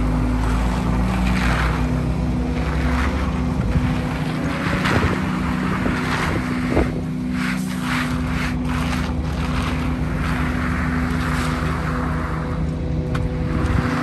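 Engine of heavy construction machinery running steadily at a constant speed, with a few short knocks about midway.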